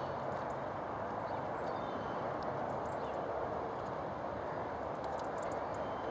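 Horse trotting on a soft sand arena surface, its hoofbeats dull and muffled under a steady rushing noise.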